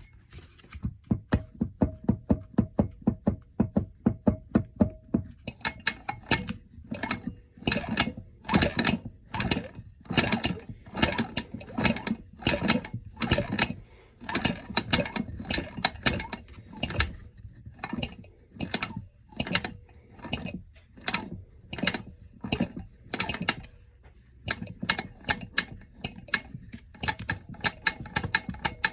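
A hand ratchet wrench clicking in quick repeated strokes, about two to three clicks a second, lighter and faster in the first few seconds and louder after, with a brief pause near the end.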